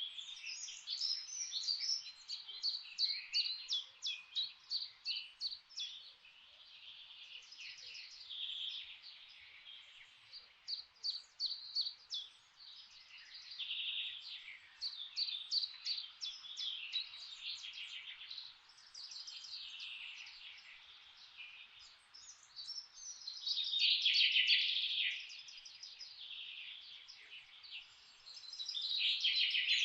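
Several songbirds singing at once in a forest chorus: rapid repeated chirps and trills, with louder bursts about two-thirds of the way through and near the end, over a faint steady hiss.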